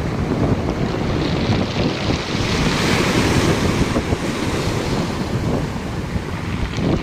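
Sea waves washing onto the shore, with a wave surging in and hissing up the beach about three seconds in, and wind rumbling on the microphone.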